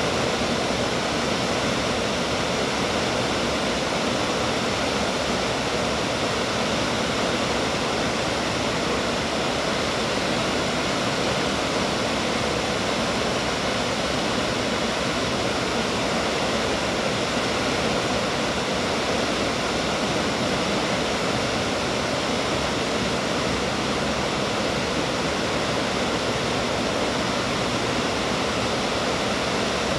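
Water pouring over a low dam and rushing across a rocky riverbed: a steady, even rush with no change.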